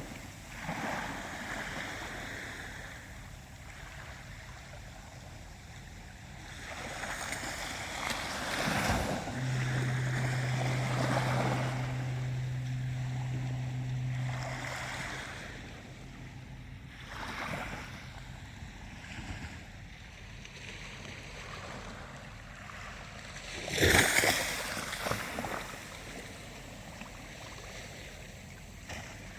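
Ocean waves washing in and drawing back in slow surges, with one sharp, louder wave crash near the end. A low steady hum runs for about five seconds in the middle.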